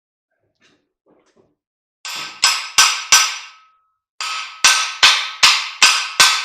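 Hammer striking metal parts of an electric motor: two runs of sharp blows, about two and a half a second, each ringing briefly with a metallic clang. The first run starts about two seconds in, the second about four seconds in.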